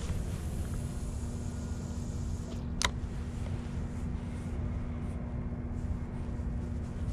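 Steady low outdoor rumble with a faint steady hum, broken by one sharp click about three seconds in.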